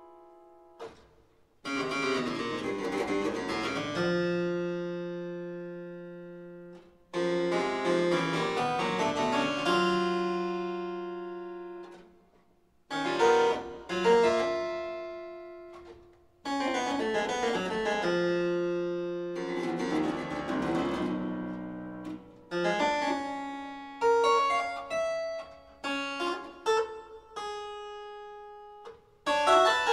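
Solo harpsichord playing contemporary music. Dense chords and rapid note flurries ring out and die away, separated by short pauses, and give way near the end to shorter, quicker chords in close succession.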